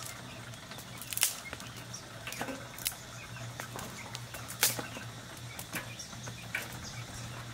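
Wood fire crackling in a metal fire pot, with a few sharp pops and snaps as the burning sticks are stirred and fed. A steady low hum runs underneath.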